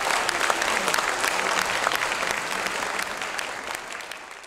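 Large audience applauding steadily. The clapping fades out near the end.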